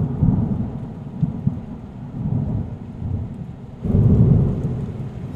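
Thunder rumbling low and rolling, swelling louder about four seconds in.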